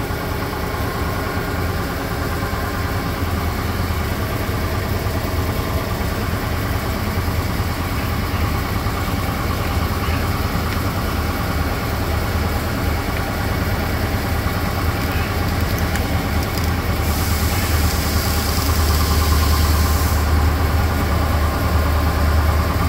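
Steady hum and drone of running shop machinery. About three-quarters of the way through, a hiss lasts about three seconds.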